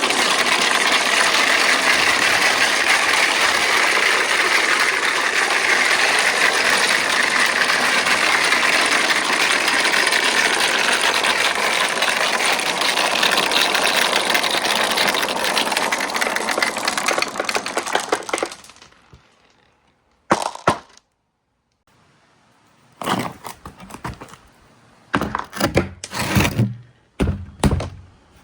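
Marbles rolling and rattling down a marble-run track in a dense, continuous rush that stops about eighteen seconds in. A few short clattering bursts follow near the end.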